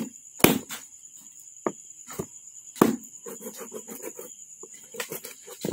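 Knife knocking and scraping on a plastic chopping board while cutting through raw duck joints: a handful of sharp knocks spaced irregularly, with a run of quicker, lighter taps a little past halfway.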